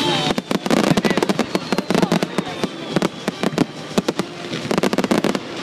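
Fireworks display: a rapid, dense string of bangs and crackles from bursting shells and a ground-level barrage, many reports a second with only brief lulls.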